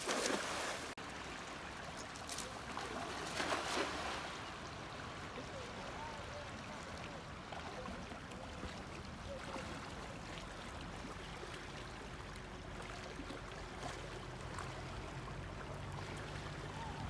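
Water running steadily, with louder splashes near the start and again about three and a half seconds in.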